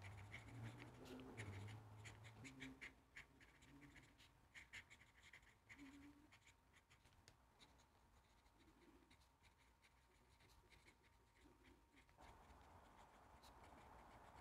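Faint scratching and ticking of a Moonman M2 fountain pen's nib writing on paper, most of it in the first half, along with a few faint low sounds in the first couple of seconds.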